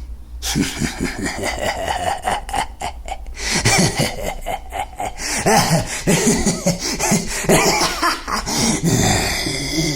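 A voice performer making nonverbal vampire-character sounds: uneasy laughs, snickers and coughs in many short, irregular bursts, with no words.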